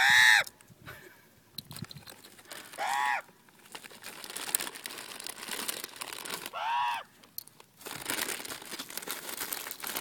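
Common ravens calling: three short caws about three seconds apart, the first the loudest, with faint scattered clicking between them.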